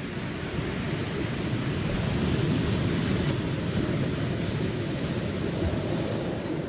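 Sea surf washing on a rocky shore, a steady rush that swells over the first couple of seconds and eases near the end.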